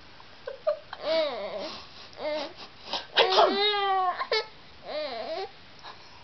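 A young child babbling: a string of high-pitched, drawn-out, gliding vocal sounds, the loudest and longest about three seconds in.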